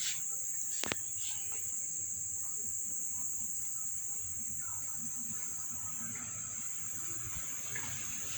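A steady high-pitched whine that holds one pitch throughout, with a single sharp click about a second in.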